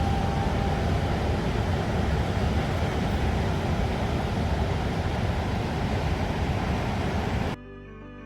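Steady low rumble of a car on the move, cut off abruptly about seven and a half seconds in as music starts.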